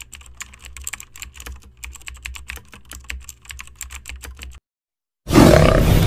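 Keyboard-typing sound effect: a rapid, irregular run of clicks over a low hum, stopping about four and a half seconds in. After a short silence, a loud big-cat roar sound effect begins near the end.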